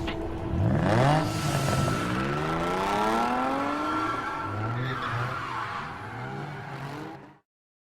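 Mini bike's 212cc single-cylinder engine revving up, its pitch climbing for a few seconds, then running lower and steadier before the sound cuts off abruptly near the end.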